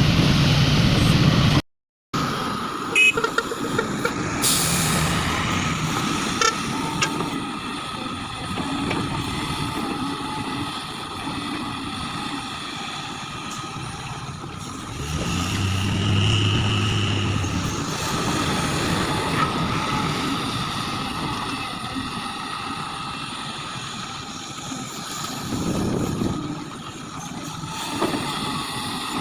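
Heavy diesel machinery running at a mine loading site: the engines of an excavator and dump trucks, steady, with a brief hiss about four seconds in and a louder stretch about halfway through.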